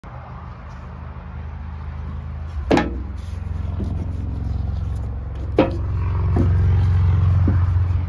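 A metal gallon paint can set down on a turntable with a sharp clunk about a third of the way in, then knocked and shifted again with a second clunk and a few lighter taps. Under it runs a steady low mechanical hum that grows slightly louder.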